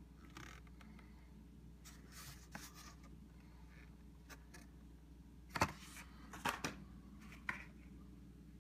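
Hot Wheels cars in cardboard-and-plastic blister cards being handled and pulled from a cardboard case: faint rustling, then several sharp clicks and knocks in the second half.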